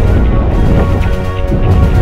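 Music soundtrack: sustained chords over a heavy, steady bass.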